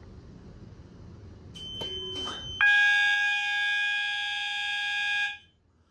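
A System Sensor MA alarm sounder, set to an 800 Hz continuous tone, sounds loud and steady for nearly three seconds and then cuts off suddenly. Just before it comes a short, higher-pitched beep. The panel is in walk test, and the alarm is set off by holding a hot lamp up to the detector.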